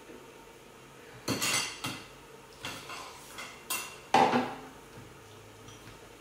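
A metal ladle and chopsticks clinking and knocking against bowls and the hot pot: a handful of separate clinks over a few seconds, the loudest about four seconds in.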